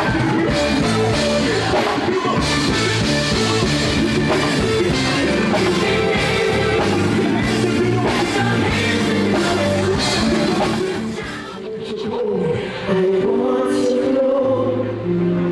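Live gospel music: a band playing with singing, loud, dipping briefly about twelve seconds in.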